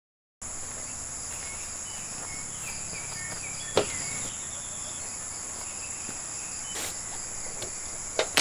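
Steady high-pitched buzz of insects, with a few short chirps. Sharp knocks of firewood pieces being handled come about four seconds in, again about seven seconds in, and near the end.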